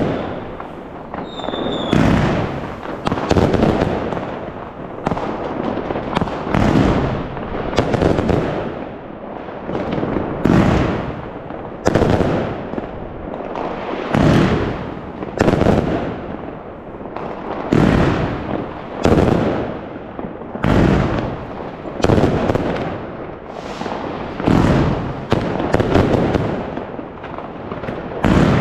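Fireworks going off without a break: loud bangs about one a second, each trailing off, over a constant din of further fireworks.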